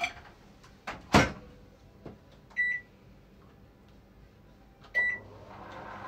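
Microwave oven being set and started: a loud knock about a second in, two short single beeps from the keypad a couple of seconds apart, then the oven starts running with a steady hum near the end.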